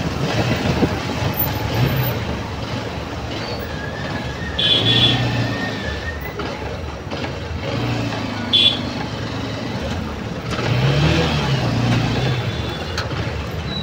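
Slow, congested city traffic heard from a motorbike: vehicle engines running and idling close by, swelling now and then. Two short high-pitched beeps cut through, about five and eight seconds in.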